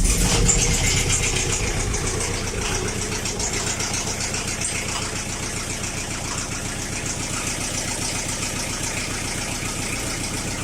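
Chrysler Grand Voyager diesel engine catching right at the start after glow-plug preheating, then settling into a steady idle. A light knock comes from a hydraulic valve lifter (lash adjuster), which is barely a knock any more.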